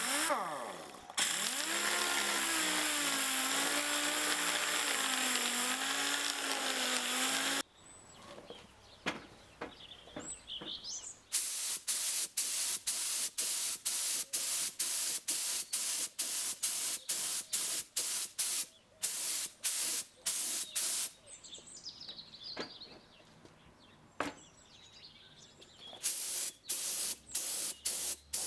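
A workshop power tool's motor spins down, then runs steadily for about six seconds with its pitch wavering under load. After a short pause comes a long run of even, rasping hand-tool strokes, about two a second, which returns near the end.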